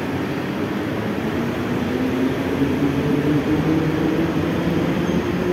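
Mumbai suburban EMU train pulling out of the platform: its electric traction motors whine in a slowly rising pitch over a steady rumble as it gathers speed.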